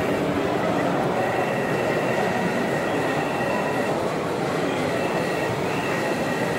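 Hydraulic pump of a 1:8 scale Akerman H14B model excavator whining steadily as the boom and bucket swing over to the tipper, its thin high whine coming and going with the controls over a steady background din.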